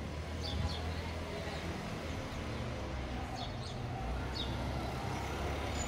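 Outdoor street ambience: a steady low rumble with a few short, high bird chirps scattered through it.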